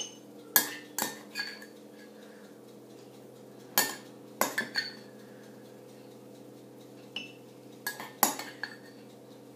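Metal spoon clinking and scraping against a ceramic bowl and ramekin while apple compote is spooned across, in three short clusters of clinks.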